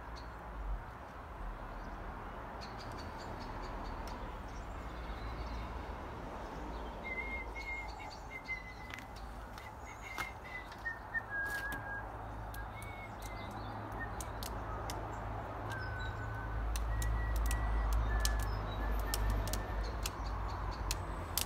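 Small birds chirping on and off in short high notes, over a steady low rumble that grows louder late on.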